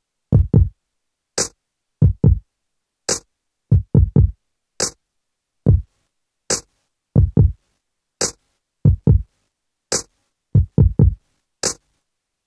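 Electronic drum-machine beat on its own: deep kicks falling in pitch, some in quick pairs, and a sharp high hit about every 1.7 seconds, with silence between the hits.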